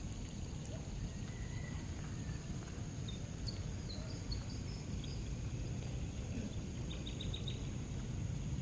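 Outdoor ambience: a steady low rumble with a faint steady high whine, a few small high bird chirps a few seconds in, and a quick run of about five chirps near the end.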